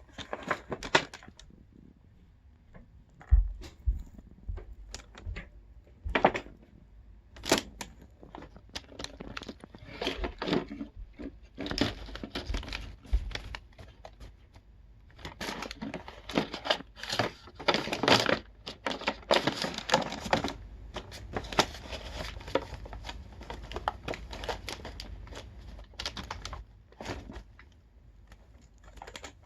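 Irregular crinkling and crunching with many scattered sharp clicks, coming in busy stretches with short lulls.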